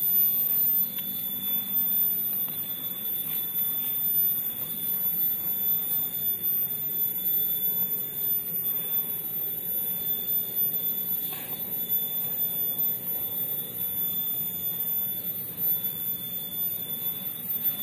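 Loose soil being scraped and dug by hand with a small tool, over a continuous high-pitched whine.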